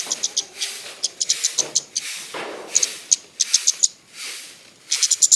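Small songbird singing, with runs of quick, high chirps repeated several times a second and short pauses between the runs.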